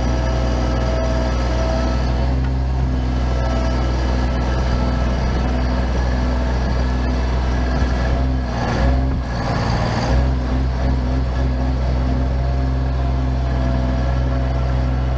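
Bobcat MT85 mini track loader's diesel engine running steadily under load as its bucket works dirt from a tipped dump-truck bed, with a brief rougher stretch about two-thirds of the way through.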